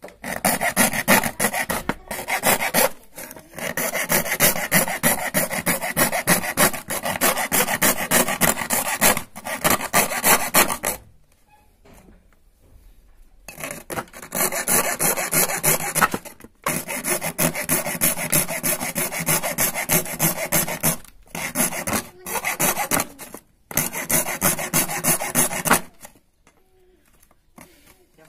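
A bare hacksaw blade, held in the fingers, sawing a slot in a white switchboard sheet with fast, short rasping strokes. The strokes come in long runs, with a pause of a few seconds about eleven seconds in and another near the end.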